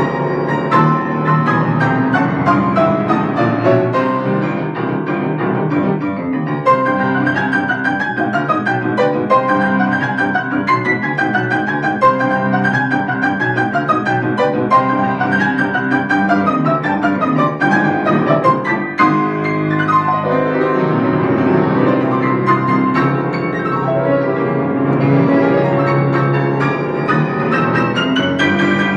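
Solo acoustic piano playing an improvisation without a break, with a repeated high figure over low chords through the middle.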